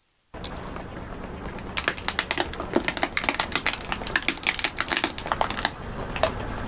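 Something brittle crackling and snapping as a car tyre crushes it: a dense run of sharp cracks for about four seconds that thins out near the end, over a faint low rumble.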